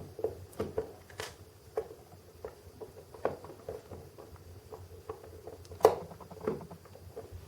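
Small scattered clicks and taps of fingers handling a diecast metal model crane and a tiny metal pin as the pin is slid into a jib cylinder, with a sharper click about a second in and another near six seconds in.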